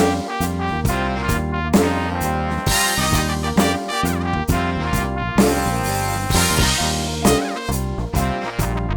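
Electronic music played on a synthesizer workstation with brass-like lead sounds and a bass line over an electronic drum kit keeping a steady beat.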